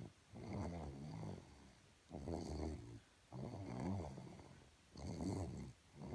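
Snoring: a steady run of about four or five snores in a row, each a pitched, wavering rattle under a second long with short gaps between breaths.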